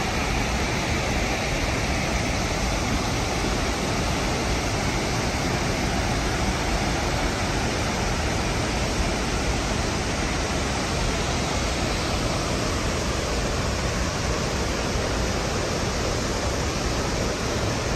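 Steady rushing of water pouring over the falls on the river, an even unbroken noise with a strong low rumble.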